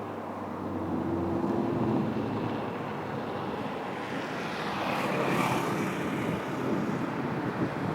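A train running past: a locomotive engine's steady low hum for the first second or two, then the rushing noise of the train, swelling about five seconds in.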